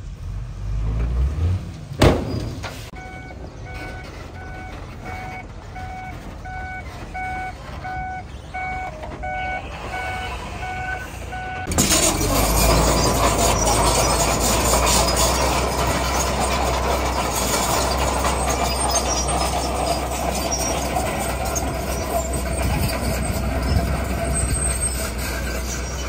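A truck's reversing beeper sounding about twice a second, after a single sharp bang about two seconds in. About twelve seconds in, a loud, steady heavy diesel engine takes over: a dump truck backing in and tipping a load of stone.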